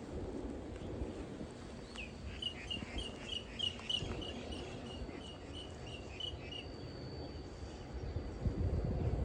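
A bird calling a run of about fourteen short repeated notes, roughly three a second, over a steady thin high insect tone and a low rumble of distant traffic.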